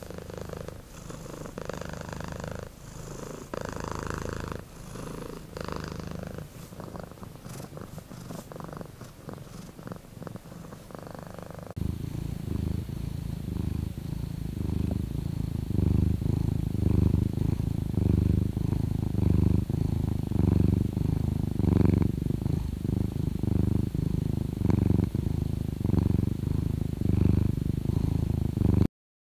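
Domestic cat purring, swelling and falling with each breath in a steady rhythm of about one cycle a second. About twelve seconds in it changes abruptly to a louder, deeper purr.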